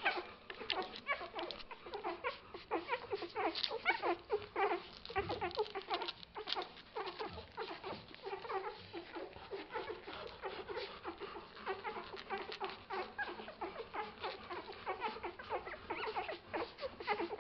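A litter of 11-day-old Bernese mountain dog puppies nursing from their mother: a constant jumble of tiny squeaks, grunts and whimpers, with quick clicks from their suckling.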